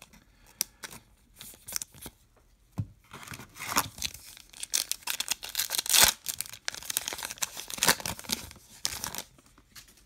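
A trading-card pack's wrapper being torn open and crinkled. There are scattered light rustles and clicks at first, then a dense run of tearing and crinkling that is loudest around the middle and stops about nine seconds in.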